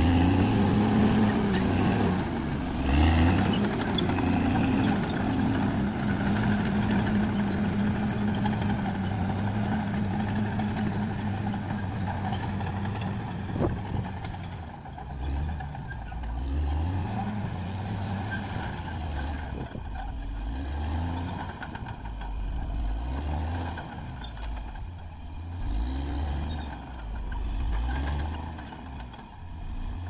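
Caterpillar D6R XL crawler bulldozer's diesel engine running under load. It is loud and close for about the first half, then farther off, with its revs rising and falling repeatedly as it pushes.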